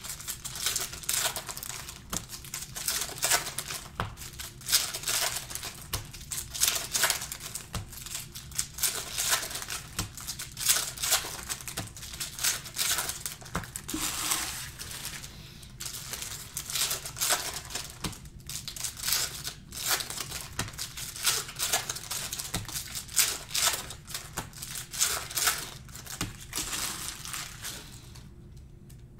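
Plastic wrappers of trading card packs crinkling as the packs are handled, in irregular bursts that ease off near the end.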